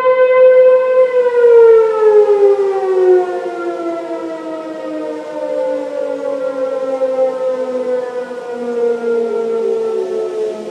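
Tornado warning siren during a test, holding a steady tone and then winding down. About a second in, its pitch starts sliding slowly lower as two tones that drift apart, one falling much faster than the other.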